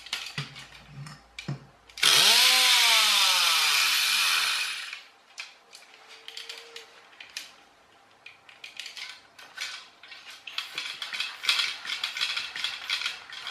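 Compressed-air piston engine of a Lanard air pump racer toy car released: a loud hiss with a whine that rises briefly and then falls in pitch over about three seconds as the charged air runs out and the engine spins down. Later comes rapid clicking and rattling as the hand pump is worked to refill the car.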